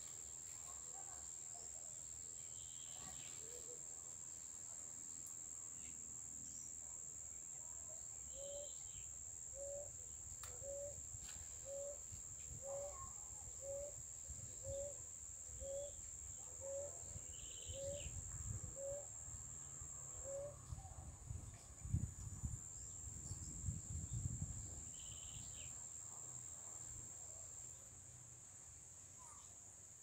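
A steady high-pitched insect drone runs throughout. Over it comes a series of about a dozen short, low cooing notes, evenly spaced about one a second, typical of a ground dove's song. A few short high bird chirps come and go, and some low rumbles are heard in the latter part.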